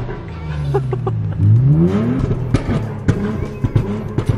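Nissan Z's 3.0-litre twin-turbo V6 heard from inside the cabin, revving up hard about a second and a half in with its pitch climbing steeply. It then gives a string of sharp exhaust pops and crackles as the throttle comes off.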